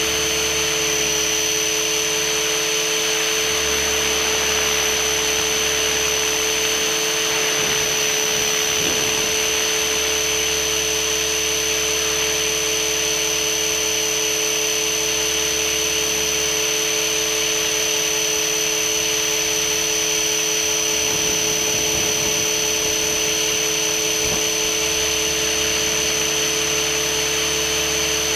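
Radio-controlled model helicopter running at a steady speed, heard from a camera mounted on the helicopter itself: a constant high whine over a steady drone of motor and rotor.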